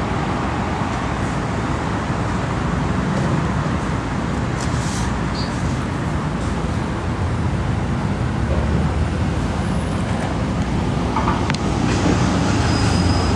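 Steady road traffic noise from passing cars, with a heavier low rumble swelling in the last few seconds as a larger vehicle goes by.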